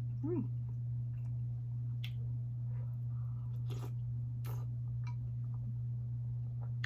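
Close-up mouth sounds of a person eating: wet squishy chewing with a few sharp clicks, over a steady low hum.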